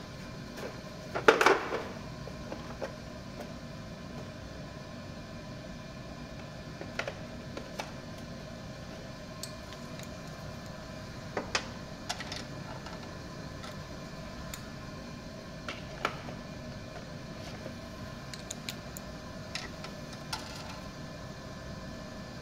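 Scattered small clicks and taps of hands and a tool working the terminal nuts on a generator's alternator connection board, with one louder clatter about a second in. A faint steady hum runs underneath.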